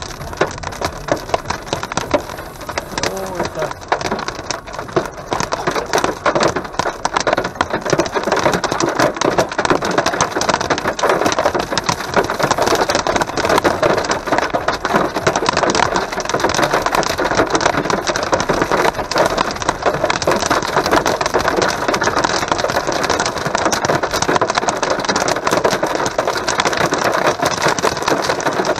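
Heavy rain drumming on a car's roof and windscreen, heard from inside the car: a dense, steady patter of drops that thickens and gets louder after the first few seconds.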